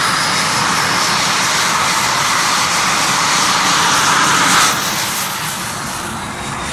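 Aero L-29 Delfín's single Motorlet M-701 turbojet running at taxi power as the jet moves along the grass: a steady jet rush with a thin high whine over it. The sound is loud for the first two-thirds, then drops off suddenly and stays lower.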